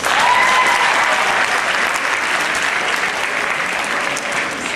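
Audience applauding: a sudden burst of clapping that starts all at once and eases off slightly near the end.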